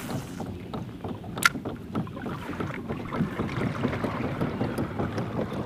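Water lapping and trickling against a plastic kayak hull, with one sharp click about a second and a half in.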